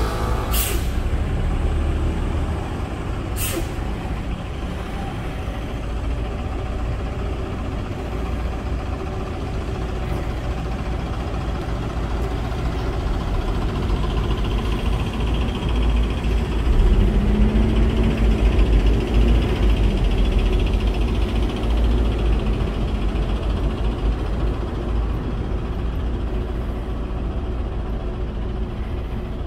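City bus running at a stop with a steady low engine rumble. Two short air-brake hisses come near the start, and the engine note swells for a few seconds around the middle.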